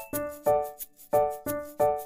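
Background music: a melody of short struck notes, about three a second, each fading quickly, over a light ticking beat.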